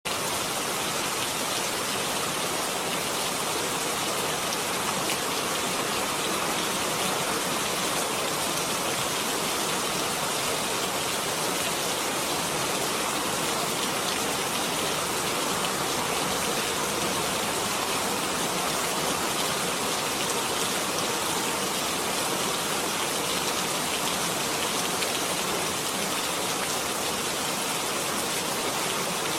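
Steady rain falling on a surface, an even hiss of many drops with no change in level.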